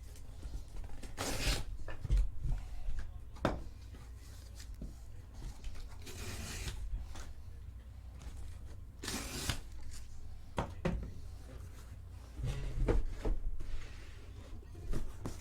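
Cardboard shipping case of trading-card hobby boxes being ripped open by hand: a few short scratchy tearing bursts of tape and cardboard, with clicks and low knocks as the boxes are handled.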